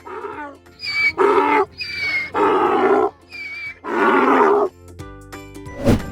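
Donkey braying: a repeated hee-haw, three loud rough haws alternating with thinner high-pitched hees, over background children's music. It stops before a brief sweep near the end.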